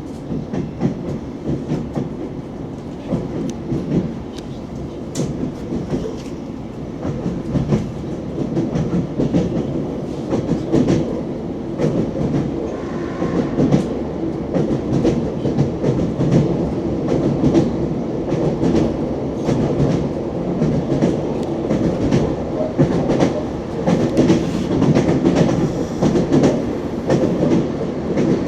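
Wheels of an ES2G Lastochka electric train clattering over the rails as it runs: a continuous rumble broken by many quick clicks, growing a little louder as the stretch goes on.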